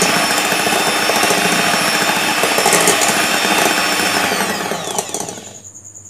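Electric hand mixer running steadily, its twin beaters whisking an egg, sugar and oil mixture in a ceramic bowl. About four seconds in it is switched off and the motor winds down in falling pitch to a stop, the egg beating done.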